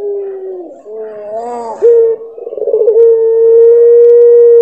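Puter pelung, a domestic Barbary dove bred for a long drawn-out coo, cooing. A falling held note opens, a shorter wavering note and a brief rough warble come near the middle, and from about three seconds in a long, steady held note.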